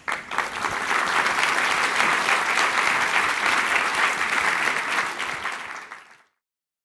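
Audience applauding, many hands clapping at once, fading out near the end.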